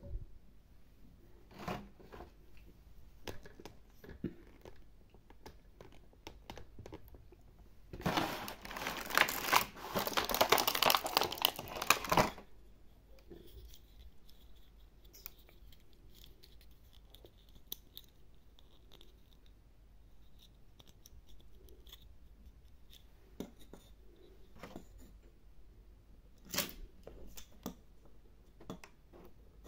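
Small clicks and taps of plastic toy figures being handled and set down on a table. About eight seconds in comes roughly four seconds of loud tearing and crinkling of plastic packaging as it is torn open.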